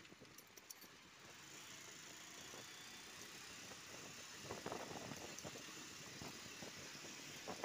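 Motorbike riding along a road behind a bus: faint, steady engine and road noise, a little louder from about four and a half seconds in.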